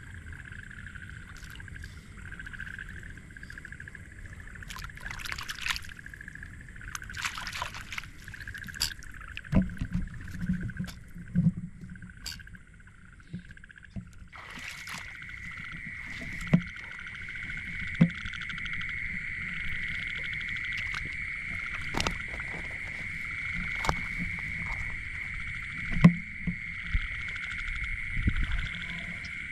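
Night chorus of calling frogs: a steady high trilling, with a second, stronger trill joining about halfway through. Scattered clicks, knocks and water sounds lie over it.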